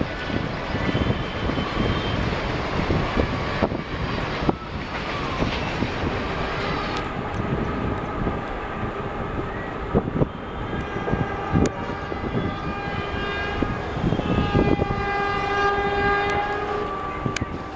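Indian Railways trains passing: a continuous rumble of wheels on track with sharp clicks over rail joints. From about ten seconds in, a locomotive horn joins as a steady chord that grows louder toward the end.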